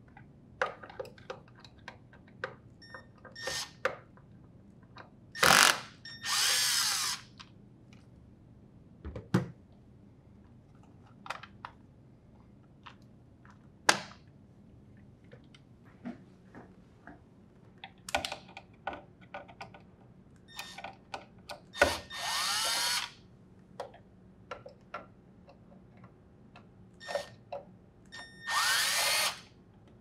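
Cordless drill driver with a Phillips bit spinning screws out of the plastic hinge covers in three short runs of about a second each, the motor pitch rising and falling. Light clicks and knocks come in between.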